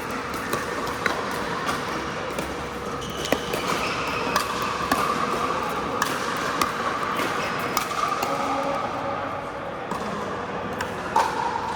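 Pickleball play on an indoor court: paddles striking the plastic ball in sharp pops at irregular intervals, over a busy background of other players.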